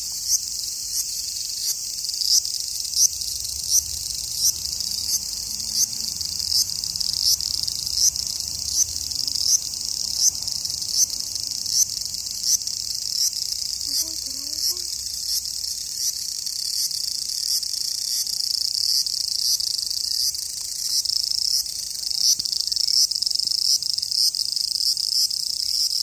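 Cicadas calling in a continuous high-pitched drone, pulsing regularly about every three-quarters of a second.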